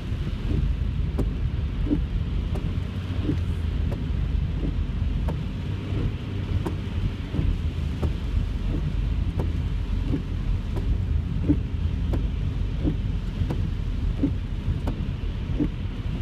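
Heavy rain and road noise heard from inside a car's cabin: a steady low rumble, with a faint short knock repeating about every three-quarters of a second.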